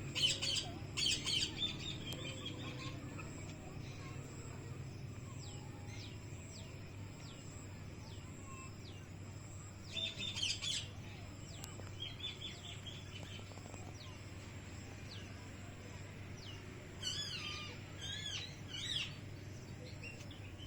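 Parrots calling in short clusters of loud, high-pitched calls: near the start, about halfway through, and again near the end. Between the clusters come faint, thin chirps at a steady spacing.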